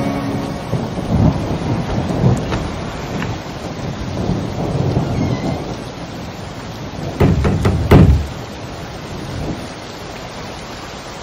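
Steady rain with low rolls of thunder, and a louder, sharper thunderclap about seven to eight seconds in.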